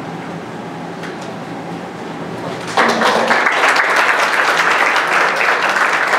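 Audience applause breaking out suddenly about three seconds in and continuing steadily, after a few seconds of quiet room noise with a faint low hum.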